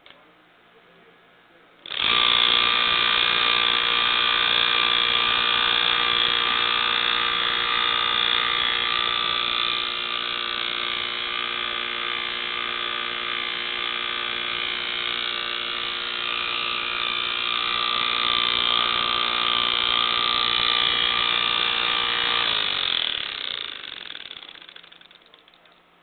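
Uncovered 1/6 hp hermetic refrigerator compressor (127 V, 60 Hz) starting suddenly about two seconds in and running with a loud, steady buzzing hum, its piston pumping fast with the oil drained and no refrigerant in it. Near the end it is switched off and spins down, its pitch sliding lower as it fades.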